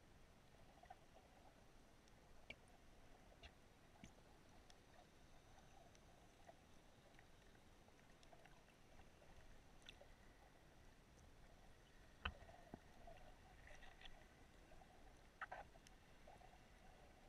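Faint underwater ambience picked up by a camera underwater: a low steady hiss with scattered small clicks and crackles, one sharper click about twelve seconds in.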